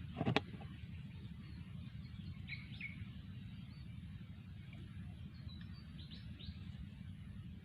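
A sharp knock with a low thump about a third of a second in, then a few short, high bird chirps over a steady low outdoor rumble.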